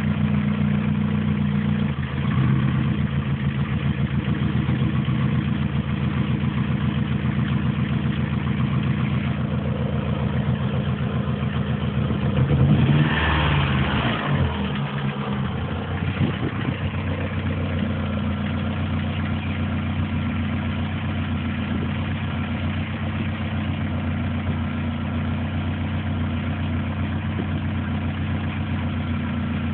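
Opel Tigra car engine idling steadily, briefly revved about 13 seconds in. It is the noise the owner offers as an engine problem.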